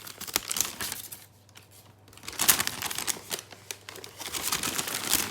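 Crinkling and rustling close to the microphone, in two spells with a quieter gap of about a second between them.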